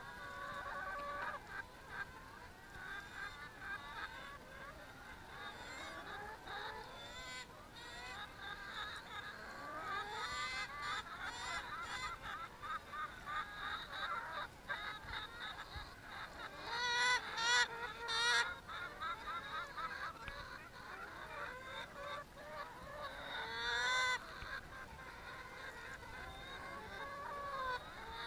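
A flock of brown laying hens calling close up: many overlapping drawn-out, wavering calls and clucks, with louder calls about 17 and 24 seconds in.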